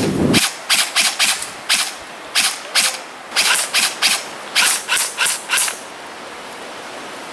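Airsoft rifles firing single shots in quick, irregular succession: about twenty sharp cracks over five seconds, then they stop. A low rumble on the microphone cuts off just after the start.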